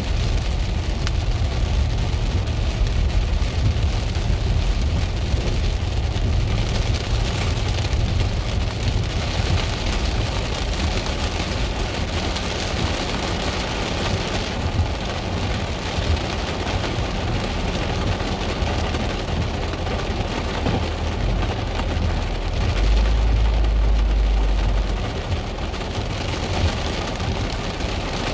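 Rain pattering on a car's windshield and roof, heard from inside the cabin, over the low rumble of the car driving along a dirt road. A louder deep rumble swells for about two seconds near the end.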